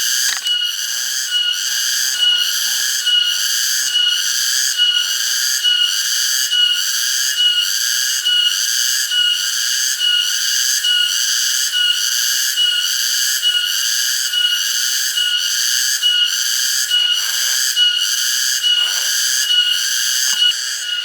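Cicadas singing in a loud chorus that pulses evenly, about two pulses a second.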